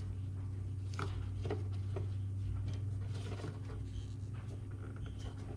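Faint clicks and rustles of a plastic brake pad wear sensor connector and its wire being handled and plugged in, over a steady low hum.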